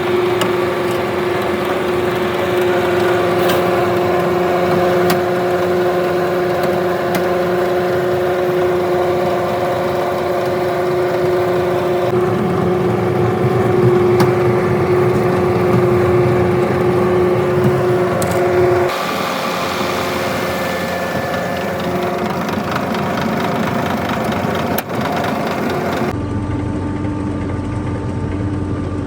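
Brick-making machinery running steadily with a continuous hum, its sound changing abruptly several times.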